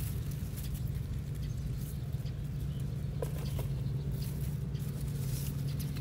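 Lemongrass stalks being cut by hand with a small blade: light snips, ticks and rustling of the grass. A steady low hum runs underneath and is the loudest part.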